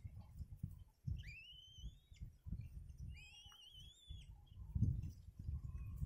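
Kites at the nest giving two thin whistled calls, each rising and then wavering for about a second, over a low irregular rumble.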